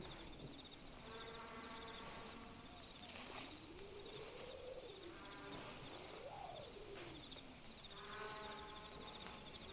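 Spooky night ambience sound effect: crickets chirping in a steady pulsing trill, with three long hooting calls and a low wavering moan that rises and falls between them.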